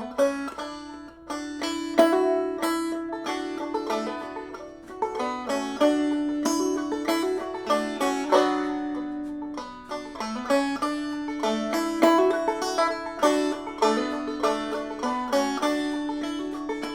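Banjo played clawhammer style, capoed at the second fret: a steady run of plucked notes picking out an instrumental intro riff that moves between C and A minor chords.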